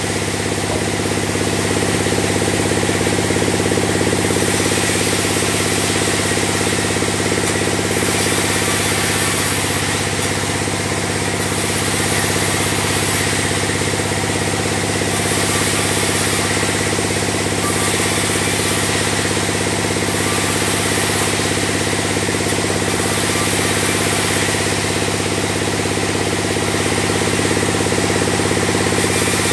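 Log bandsaw mill running steadily, with a constant engine-like hum and rattle, while sawing a log into beams.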